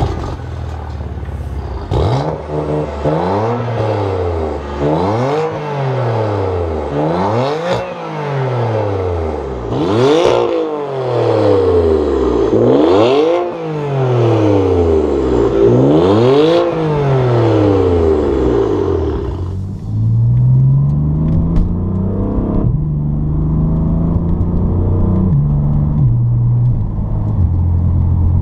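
BMW F8x M3/M4 twin-turbo inline-six revving through an AWE non-resonated SwitchPath stainless catback exhaust. There are about a dozen quick blips, each rising and falling over about a second and a half. About twenty seconds in it drops to lower, steadier running with slow shifts in pitch.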